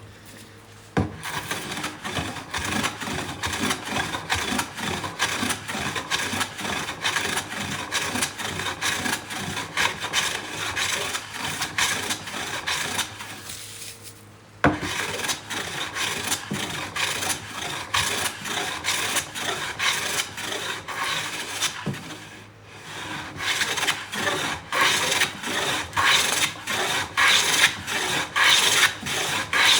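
A hand rasp working wood in repeated rough strokes, with short pauses about 14 and 22 seconds in. There is a sharp knock about a second in and another near the middle, and the strokes grow louder near the end.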